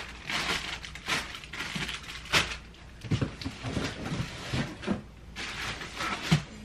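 Rustling and crinkling of diaper packaging and a cardboard box as diapers are taken out and stacked, with a few soft knocks of handling.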